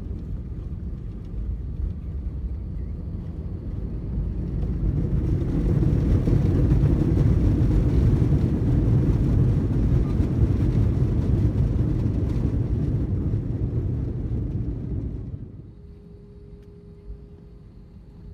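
Airbus A321 engines and runway rumble heard from inside the cabin during the landing roll. A deep, even rumble swells to a loud peak, the sound of reverse thrust, then drops off sharply near the end to a quiet, steady cabin hum with a faint single tone.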